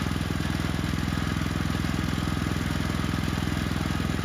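Sawmill's gasoline engine running steadily at an even speed.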